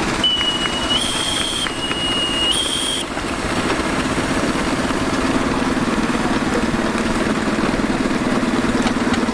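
Shrill steam whistle on a miniature steam engine, blown twice in quick succession, each blast jumping up a step in pitch. Under it, miniature steam traction engines and a steam roller run steadily as they drive slowly past.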